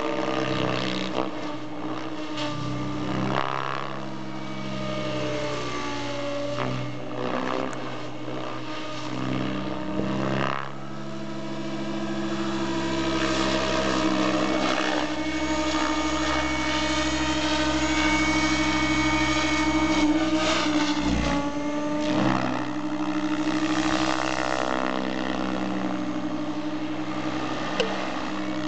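SAB Goblin 700 electric RC helicopter flying 3D aerobatics: the whine of its Align 750MX brushless motor and the main and tail rotor blade noise. Its tone bends down and back up several times, and it grows louder from about eleven seconds in as the helicopter passes low and close.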